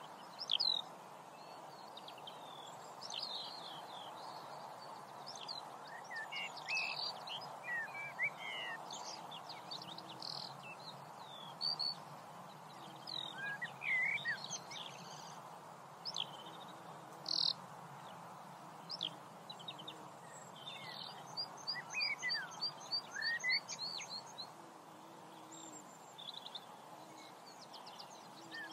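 Several birds chirping and calling, with short scattered calls throughout and a fast trill about twenty-two seconds in, over a steady background hiss.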